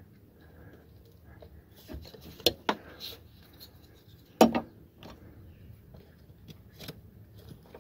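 A few sharp plastic clicks and knocks from hands working the wiring connector and loom at a throttle body. There is a pair of clicks about two and a half seconds in, and the loudest click comes about four and a half seconds in.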